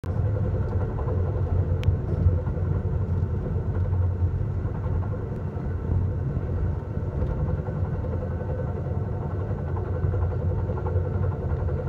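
Steady low rumble of a moving passenger train heard from inside the car, with its wheels running on the rails, and a faint click about two seconds in.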